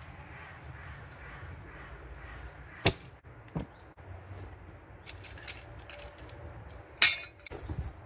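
Gear being handled: two sharp knocks about three seconds in, then a loud brief snap and rustle of heavy canvas as a zeltbahn tent sheet is lifted and shaken out near the end.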